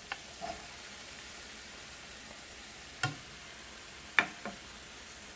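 Chopped onions and green chillies frying in oil in a frying pan with a steady sizzle, broken by a few sharp knocks against the pan, the loudest about three and a little over four seconds in.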